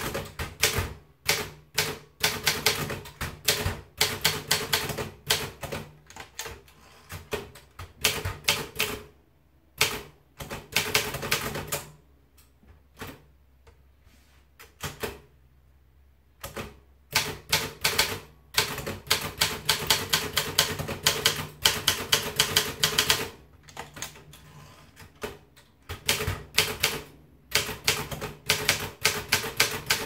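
Optima Elite 3 manual portable typewriter being typed on: a quick clatter of keys and typebars striking the paper, in runs with brief pauses and a longer lull about halfway through.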